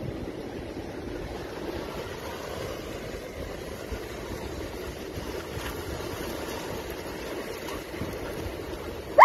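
Steady wind noise on the microphone over surf washing on a beach. A short, loud, pitched sound cuts in right at the end.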